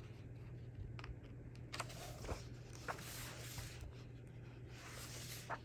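Faint paper rustle and a few small ticks as the pages of a paperback coloring book are handled and turned, with a soft swish of a page sliding over about halfway through.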